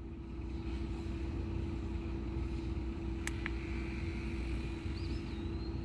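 Car engine idling with a steady low rumble and a constant hum. Two sharp clicks come close together about three seconds in.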